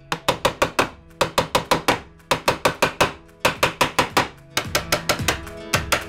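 Fret hammer tapping nickel fret wire into the slots of a guitar fingerboard: quick runs of light taps, about five a second, with short pauses between runs as each fret is seated.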